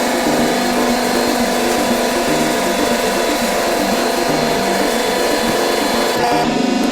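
Hydraulic baler's electric motor and hydraulic pump running with a steady mechanical hum.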